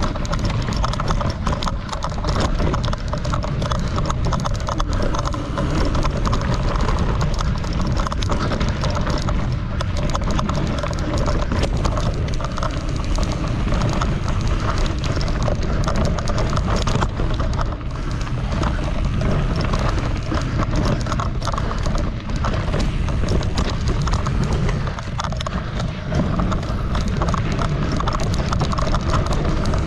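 Mountain bike ridden along a dirt and gravel trail: a steady low rumble of tyres on the ground with a constant rapid clatter and rattle of the bike over bumps.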